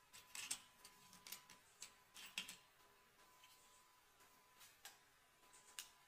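Long hair rustling and crackling as a braid is twisted and handled by hand: short, soft, scratchy rustles at uneven intervals, several in the first couple of seconds and a few more near the end.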